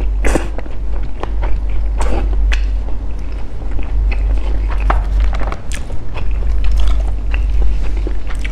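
Close-miked chewing of a mouthful of sticky rice in durian coconut-milk sauce: soft, wet mouth clicks and smacks scattered throughout, over a steady low rumble.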